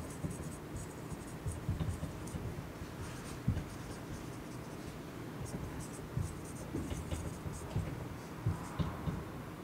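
Dry-erase marker writing on a whiteboard: a run of short, squeaky strokes in quick clusters, with light knocks against the board.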